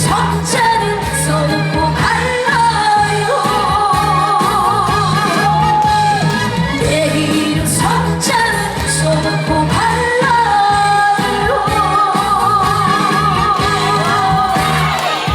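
Live trot song: a singer holds notes with a wide vibrato over an amplified backing track with bass and drums.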